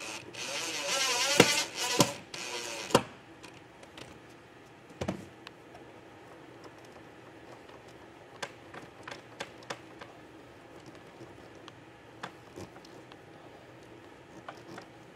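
Cordless drill-driver running for about three seconds, its speed rising and falling, with a few sharp knocks, then cutting off. After that, scattered light clicks and taps as hoses and cables are handled.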